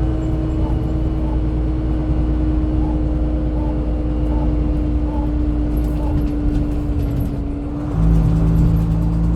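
Dennis Dominator double-decker bus's diesel engine running steadily with a strong held tone. About eight seconds in it gets louder and a deeper note joins in.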